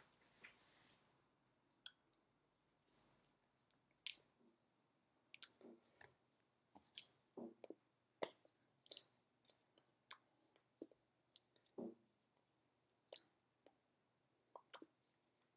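Faint, irregular clicks and taps, about two or three a second, from a person signing in sign language: hands striking each other and the body, with small mouth noises.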